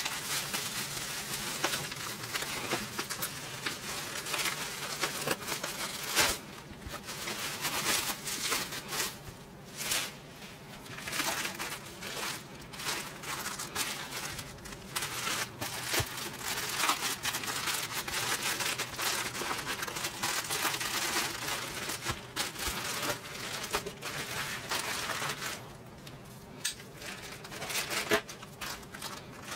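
Bubble wrap and plastic packaging crinkling and crackling as it is handled and pulled off by hand, in irregular bursts with short pauses. Near the end, scissors cut into a plastic mailer bag.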